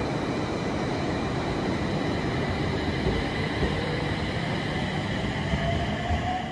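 JR East 701 series electric train pulling out of the station past the platform, with a dense running rumble and steady high whines. A motor tone rises in pitch over the last few seconds as the train gathers speed.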